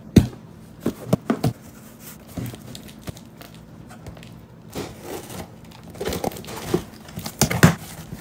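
Shipping package being handled: crinkling and rustling of packaging with scattered sharp knocks and clicks, a few near the start and a cluster near the end.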